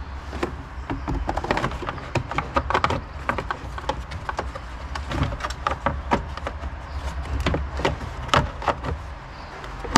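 Hard plastic engine-bay cover being handled and pushed back into its clips: a string of irregular clicks, knocks and rattles of plastic on plastic.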